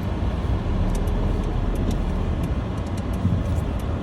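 A car running: a steady low rumble of engine and road noise, with light high ticks scattered through it.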